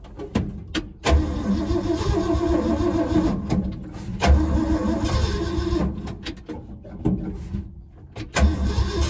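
Starter cranking the freshly rebuilt Ford 360 FE V8, with a couple of clicks and then three tries of about two to three seconds each, stopping briefly in between: the engine not yet running on its own while the timing is being adjusted.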